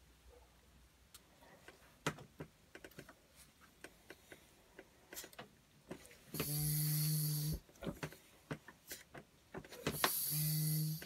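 Kismet Duplex Master double-barrel foot pump worked by hand for two strokes. Each stroke drives about a second of air out through the hose as a loud hiss with a low buzzing tone. Light clicks and knocks of the metal lever and spring come in between.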